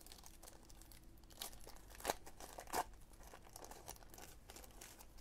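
Faint rustling of trading cards being handled and shuffled through, with a few light clicks and two sharper snaps of card stock a little past the middle.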